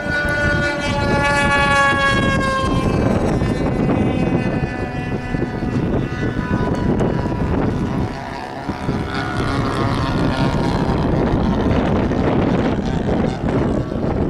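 Engine of a Super Sport 40S radio-controlled model airplane in flight. Its whine drops in pitch over the first few seconds as the plane passes, then sounds fainter and climbs again later. Heavy wind noise on the microphone runs under it.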